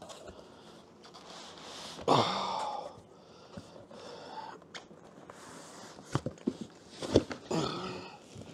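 A heavy cardboard box being pushed and slid across a desk by hand, with rough scraping, a few sharp knocks between about six and seven seconds in, and two grunts of effort from the person shifting it.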